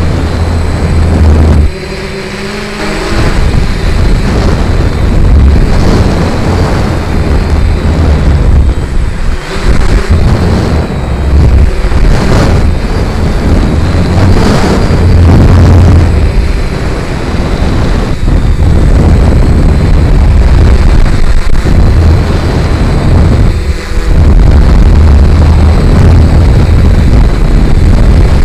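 Strong gusty wind buffeting the microphone with a heavy, uneven rumble, over the steady whir of a quadcopter's propellers.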